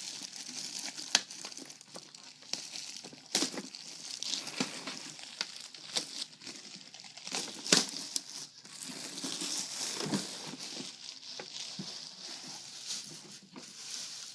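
Plastic packaging crinkling and rustling as it is handled and pulled off a newly unboxed appliance, with many sharp crackles throughout and the loudest snap about halfway through.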